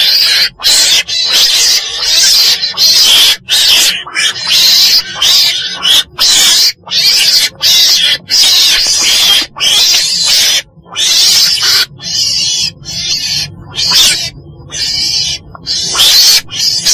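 Mustela weasel (chồn đèn) calling: harsh, hissing, raspy calls one after another, broken by short gaps, a little weaker for a few seconds near the end.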